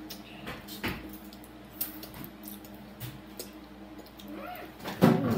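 Children eating noodles with chopsticks: wet slurping and scattered light clicks of chopsticks against ceramic bowls. A short, loud child's vocal sound comes near the end.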